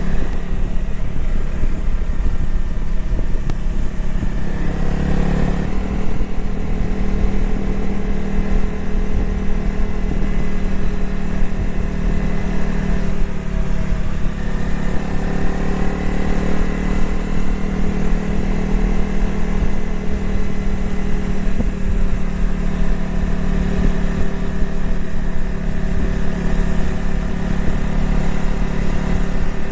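Honda CRF250L's single-cylinder engine running under way. Its note climbs and then drops suddenly about five seconds in, dips and climbs again around fourteen seconds, and otherwise holds steady.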